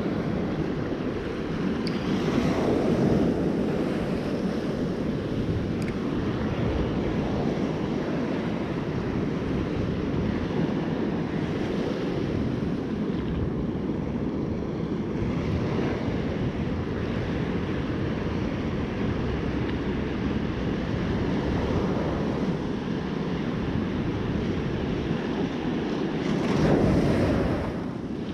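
Heavy surf washing and breaking on a sandy beach, the rough sea left by a storm, with wind rushing over the microphone. The waves swell loudest about two seconds in and again near the end.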